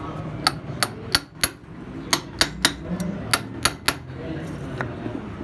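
Sharp metal-on-metal taps and clinks, about ten in quick groups of two or three, then one more near the end, as the aluminium cylinder head of a Honda CG125 engine is handled and fitted over its studs.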